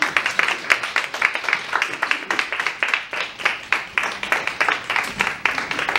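A small audience clapping: steady applause made of many quick, overlapping hand claps.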